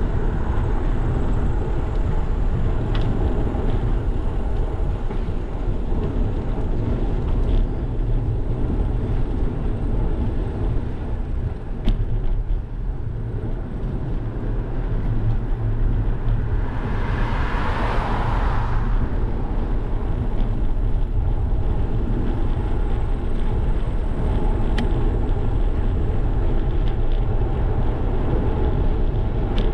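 Wind rushing over a GoPro's microphone on a moving bicycle, a steady low rumble. About seventeen seconds in, a vehicle's passing noise swells and fades over roughly two seconds.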